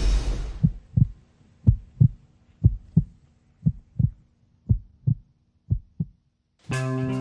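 Heartbeat sound effect: paired low lub-dub thuds about once a second, the suspense cue a TV talent show plays as a singer walks out for a blind audition. A rushing swell dies away in the first second, and near the end the band comes in with a sustained guitar chord.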